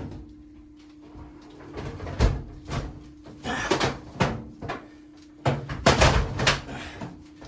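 Irregular knocks and thumps of a Samsung over-the-range microwave bumping against the cabinet and wall mounting plate as it is worked onto its mounting pegs, loudest about six seconds in.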